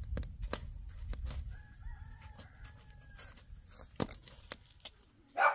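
A rooster crows once, faintly, in a drawn-out call of about a second and a half starting about a second and a half in, over a low rumble and scattered sharp clicks and knocks. A louder sound breaks in right at the end.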